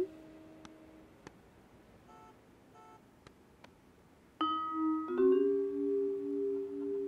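Background cartoon music: a few soft, scattered plinking notes, then about four and a half seconds in, held notes come in and carry on, shifting pitch once.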